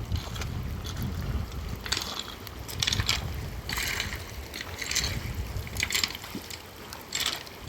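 Wind buffeting the microphone with a low rumble, over floodwater running and splashing in short irregular bursts.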